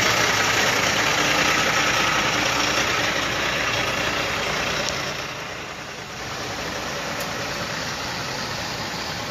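Semi-truck's diesel engine idling, getting quieter about five seconds in.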